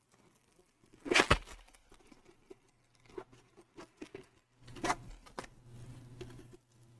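Plastic bags of diamond painting drills crinkling and rustling as they are slid out of a cardboard tube onto a wooden table, with a loud rustle about a second in and another near five seconds, plus small scattered clicks.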